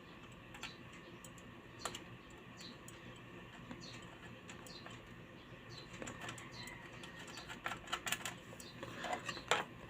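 Light, irregular clicks and taps of screws and a screwdriver as the heat sealer's casing is screwed back together. The clicks come more often in the last few seconds.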